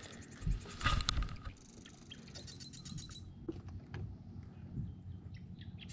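Soft handling knocks and thumps as a caught largemouth bass is held and handled over a boat deck, with a short run of rapid ticking about halfway through.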